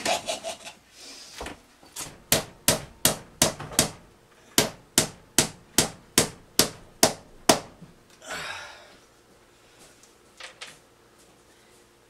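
Claw hammer driving nails into wooden trim overhead: a steady run of about fifteen sharp strikes, two to three a second, which then stops.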